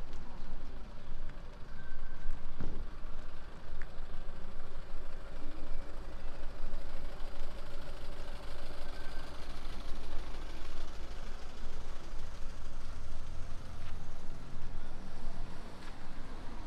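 A vehicle engine idling over a steady low rumble, with a faint held engine tone in the middle.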